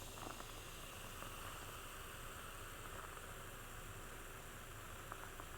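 Faint, steady hiss of background noise, with a couple of faint small clicks.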